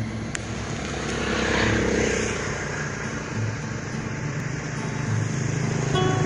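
A motor vehicle's engine running steadily.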